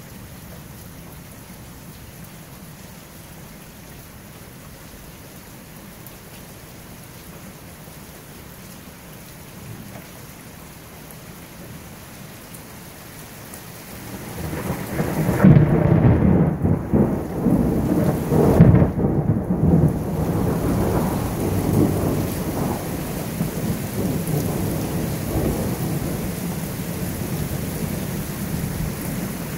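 Steady rain hiss, then about halfway through a long peal of thunder breaks in loud, with sharp cracks in its first few seconds, and rumbles on, slowly fading.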